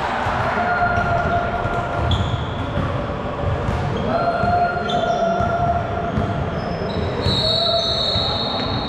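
Basketball bouncing on a gym's hardwood floor during a game, irregular thuds throughout. Several short high squeaking tones sound over it.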